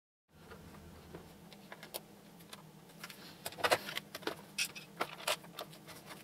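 Light metallic clicks and clinks of small screws and a hand tool being handled on the metal base of a Festool Kapex miter saw. The clicks come louder and more often after about three seconds, over a faint steady low hum.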